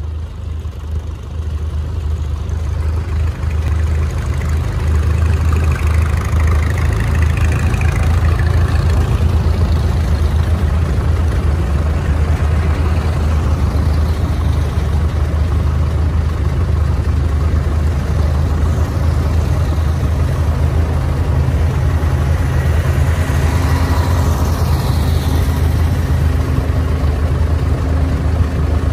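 Engines of several antique farm tractors running at low speed as a column of them drives past: a steady deep drone that grows louder over the first few seconds and then holds.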